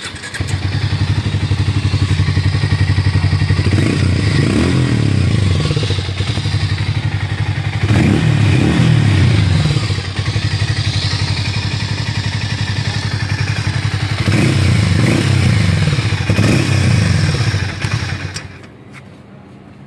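Harley-Davidson X440's single-cylinder engine starts at the very beginning, idles steadily and is revved in four short throttle blips, the pitch rising and falling each time, then shuts off near the end.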